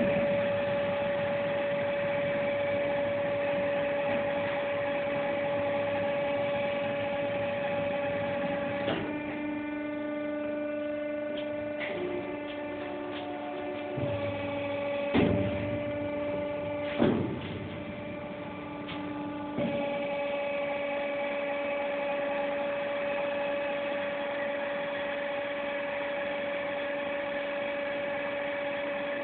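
Book edge squaring machine, just switched on, running with a steady electric hum. About a third of the way in its hum drops to a lower, different tone for roughly ten seconds, with two sharp knocks, while a book is worked, then returns to the first steady hum.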